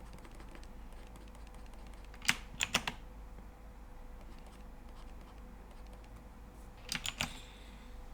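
Computer keyboard keys clicking in two quick clusters, about four presses a couple of seconds in and three more near the end, over a faint steady electrical hum.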